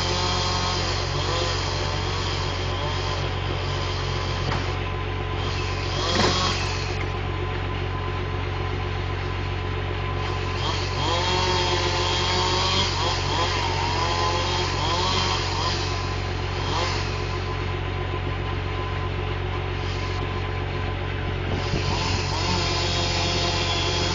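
A John Deere 540E skidder's diesel engine idles steadily, heard from inside the cab. Over it, a chainsaw runs in the distance, its pitch rising and falling as the tree is topped. There is one sharp crack about six seconds in.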